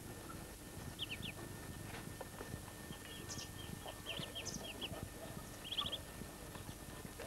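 Muscovy ducklings peeping: short high chirps in quick little runs, loudest near the end, over soft low knocks and rustling close by.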